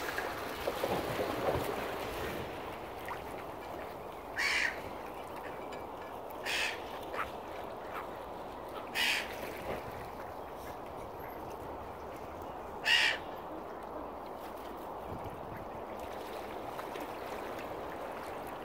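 Four short, harsh calls from water birds, spaced a few seconds apart, the last the loudest, over a steady background rush.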